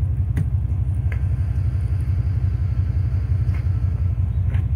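Steady low rumble on a handheld microphone carried at a run over rough ground, with a few faint knocks of footfalls or handling.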